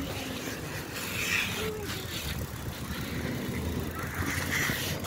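Wind and handling noise rumbling on a handheld phone's microphone while a bicycle is brought to a stop on a concrete path. Faint voices can be heard in the background.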